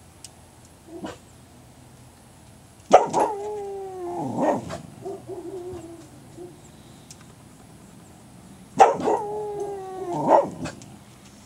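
A dog howling twice, about three seconds in and again just before nine seconds; each bout starts sharply and slides down in pitch over about two seconds.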